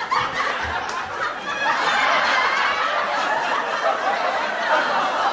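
Sitcom laugh track: a studio audience laughing, starting suddenly and growing fuller about a second and a half in.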